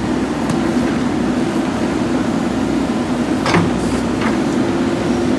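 JCB backhoe loader's diesel engine running steadily, with one sharp knock about three and a half seconds in.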